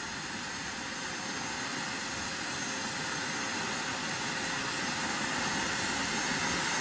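Radio-controlled model jet's miniature turbine engine running on the ground: a steady rushing hiss with a thin high whine, slowly getting louder.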